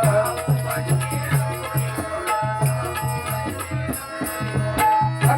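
Instrumental interlude of a Marathi bhajan: a hand drum keeps a steady beat of about two to three strokes a second under a sustained melody, with jingling small percussion on top.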